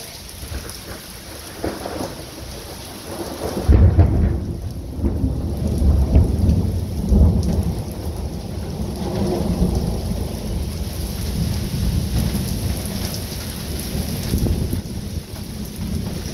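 Steady rain falling during a thunderstorm. About four seconds in, thunder breaks suddenly and loudly, then rolls on in deep rumbles that swell several times.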